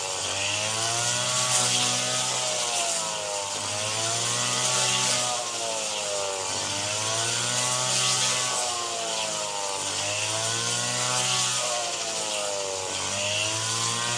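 Engine of a rice-harvesting machine running steadily, its pitch dipping and climbing back about every three seconds, over a constant hiss.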